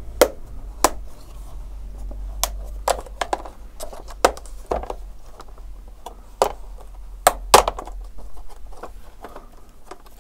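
Display bezel of an ASUS UX303LA laptop being pried off by hand: a series of irregularly spaced sharp clicks and snaps as its retaining clips come loose.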